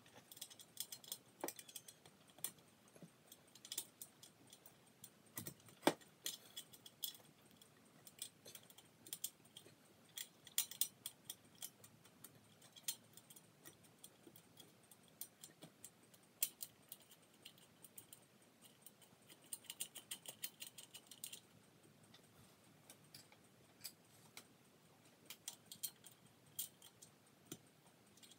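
Faint, irregular light clicks and small rattles in quick clusters from a hand working at the rim of a hugger ceiling fan's housing against the ceiling, with one sharper knock about six seconds in.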